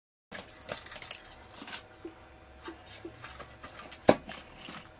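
Light clicks, taps and rattles of hands handling the metal frame and parts of a disassembled LCD monitor, with one sharp knock about four seconds in.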